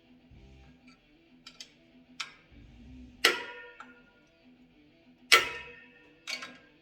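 Sharp metallic clicks and clinks at irregular intervals, a few ringing briefly, as the clutch spring adjusting nuts are tightened against the locking tabs of the spring retainer plate. The loudest click comes about two-thirds of the way through.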